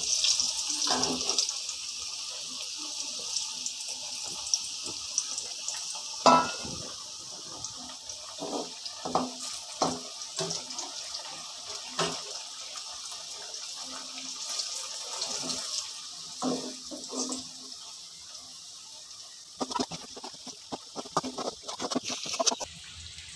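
Elephant foot yam slices frying in hot oil in an aluminium kadai, a steady sizzling hiss, with scattered clinks and scrapes of a steel slotted spoon against the pan and a steel colander as the golden-brown pieces are lifted out.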